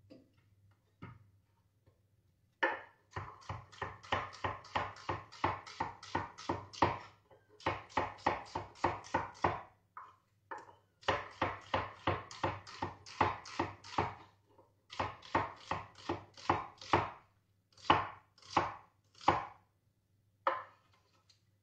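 Kitchen knife chopping onion on a wooden cutting board: quick, even knocks about three or four a second, in several runs with short pauses, starting a few seconds in and stopping shortly before the end.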